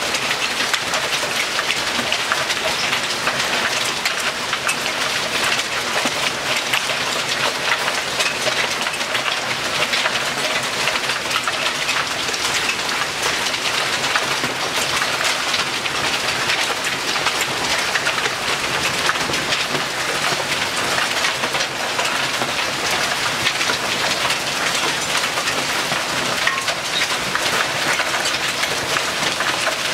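Heavy hail falling steadily, a dense, unbroken clatter of countless stones striking hard surfaces at the storm's peak.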